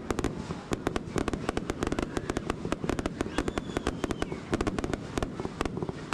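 Fireworks going off: a dense, rapid crackle of many sharp pops and cracks over a low rumble.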